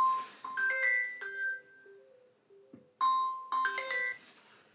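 Electronic melody of short, clean chime-like notes stepping up and down in pitch. It starts abruptly and starts again about three seconds in, like a repeating ringtone or alert tune.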